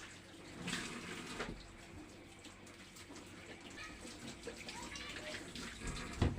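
Water running faintly from a kitchen tap, with a sharp knock near the end.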